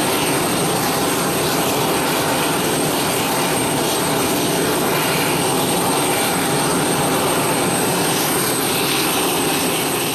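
A line of F-16 fighter jets running their engines on the ground: a loud, steady jet noise with a thin, high whine over it.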